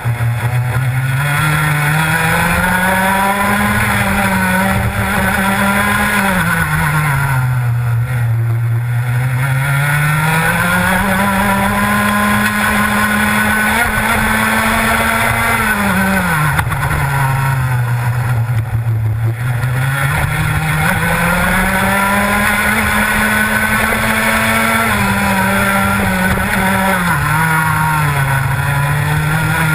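Rotax Max 125cc two-stroke kart engine at race pace. Its pitch falls as the kart slows for each corner and climbs back up along the straights, with lows about every nine or ten seconds.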